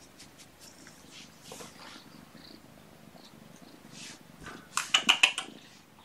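Kitten purring close to the microphone, a faint low steady rumble. About five seconds in comes a quick run of loud clicks and rustles.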